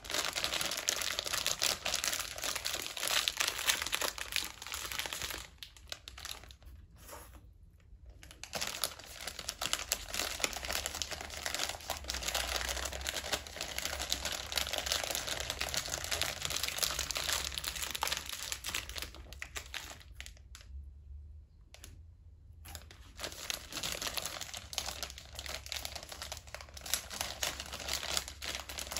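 Plastic KitKat wrapper crinkling as it is handled and tipped up to the mouth. The crinkling is nearly continuous, with two short quiet pauses, about six seconds in and again about twenty seconds in.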